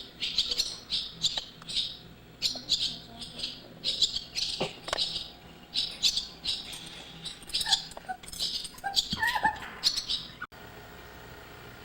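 Swallows chirping: a rapid run of short, high calls, a few every second, that stops abruptly about ten and a half seconds in.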